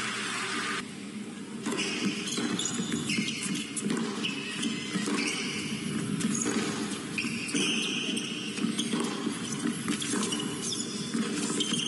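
Tennis rally on an indoor hard court: sharp racket-on-ball strikes and short high squeaks of shoes on the court over a steady murmur from the arena crowd.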